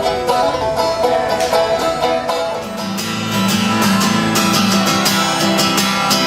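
Music with plucked strings, banjo- or guitar-like, picking a quick repeated pattern; about two and a half seconds in, a sustained low bass line comes in and a steady beat joins.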